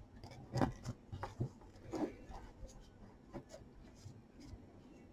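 Faint clicks and rubbing of a metal loom hook and yarn against the pegs of a round knitting loom as stitches are worked, with a few louder taps in the first two seconds.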